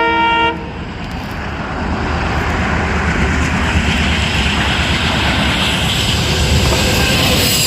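An Indian Railways locomotive horn sounds a steady multi-note chord that stops about half a second in. A passing train's rumble and rushing noise follow, building and then holding steady.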